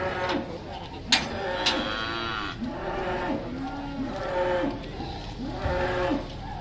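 Young cattle mooing over and over in a pickup truck's livestock crate, short calls following one another about once a second. A sharp knock sounds about a second in.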